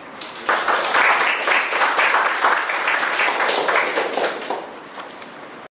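Small audience applauding, starting about half a second in and dying away near the end.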